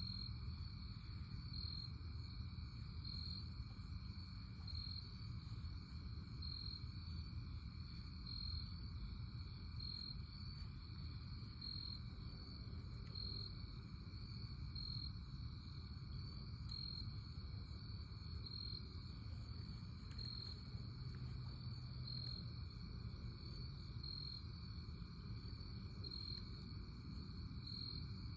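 Night insect chorus of crickets: a steady high trill that swells about every second and a half, over a low rumble.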